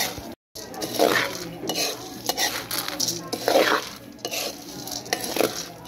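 Metal spatula scraping and stirring roasting barako coffee beans around a metal pan, the dry beans rattling and sliding against the pan in repeated sweeps, about one or two a second.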